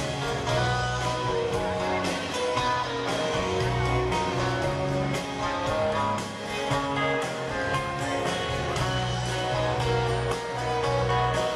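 Live string band playing an instrumental passage: strummed acoustic guitar and other plucked strings with fiddle, over drums and bass, in a steady beat.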